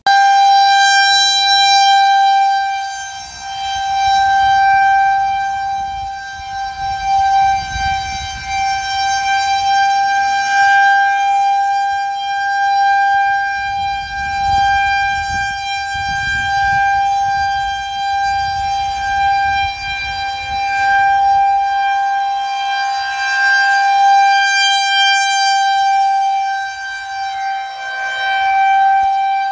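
Federal Signal 2001-130 outdoor warning siren sounding a loud, steady-pitched tone for a tornado warning, its loudness swelling and fading every few seconds as the rotating head sweeps past.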